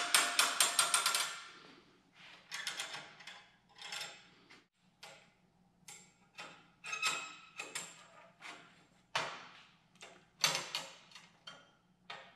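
Steel bandsaw blade clinking and rattling against the steel tooth setter and welding table as it is fed into the setter's slots: a quick run of metallic clatter at the start, then scattered clinks with a slight ring.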